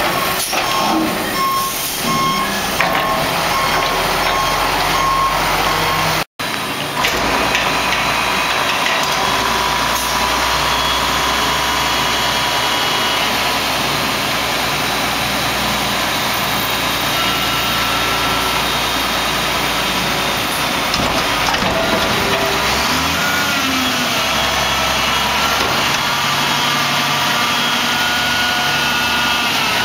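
Mack MR front-load garbage truck's diesel engine running under the work of its Pak-Mor body's hydraulics, with a back-up alarm beeping during the first few seconds. The engine revs up late on as the front forks lift a dumpster over the cab.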